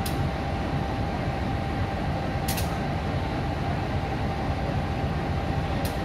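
CC 203 diesel-electric locomotive idling while standing, a steady low engine rumble with a constant whine over it. Three brief sharp clicks come through, a few seconds apart.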